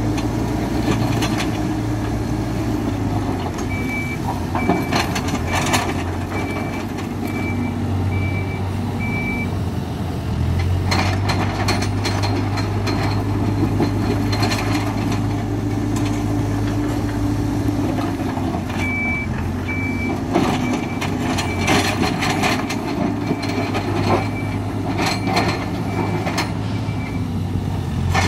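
Hidromek 102B backhoe loader's diesel engine running steadily while its reversing alarm beeps in two runs as the machine backs up. Scattered clanks come from the machine working the material.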